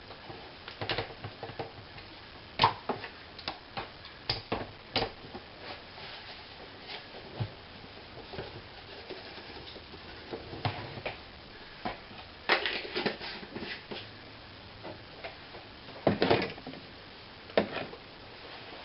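Scattered light clicks and taps from handling seasoned raw chicken pieces and seasoning in a container, with a few short clusters of quick taps.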